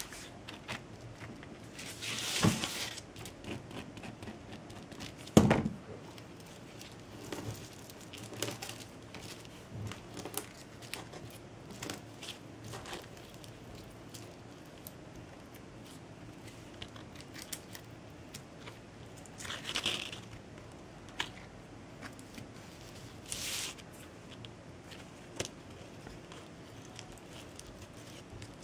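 Intermittent small handling sounds of jute-filigree craft work: scattered light clicks, taps and short rustles of jute cord and hand tools, with a sharper knock about five seconds in.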